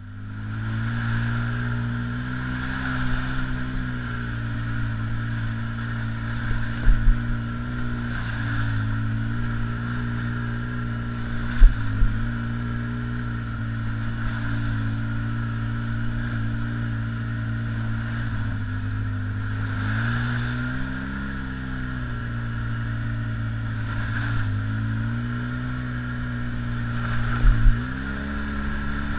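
Side-by-side UTV engine running as it drives a rough dirt trail, its pitch dipping and rising with the throttle several times. A few sharp thumps at about 7, 12 and 27 seconds in, the loudest around 12 seconds.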